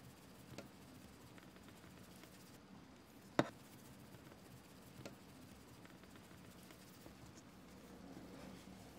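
Quiet handling sounds: one sharp click about three and a half seconds in, with two softer taps before and after it, over a faint low hum.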